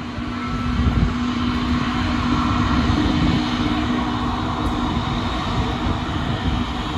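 Airbus A321neo's Pratt & Whitney PW1100G geared turbofans running, a steady engine drone with a low hum and a higher tone over a broad rumble, swelling slightly about a second in.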